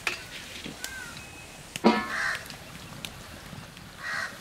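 A crow cawing twice, short harsh calls about two seconds in and again near the end. A sharp knock, the loudest sound, comes just before the first caw.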